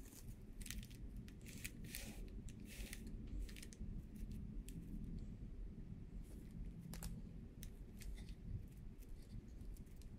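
Faint rustling and crinkling of a paper sheet with scattered light clicks and scrapes of wood, as hands fit a small wooden ring into a stack of cut rings and press them flat.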